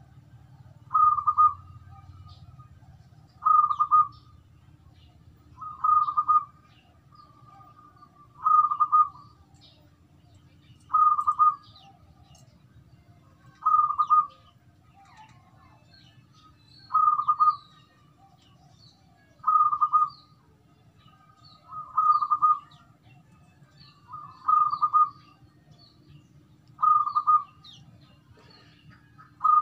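Zebra dove (perkutut) cooing in its cage: one short cooing phrase repeated about every two and a half seconds, about a dozen times.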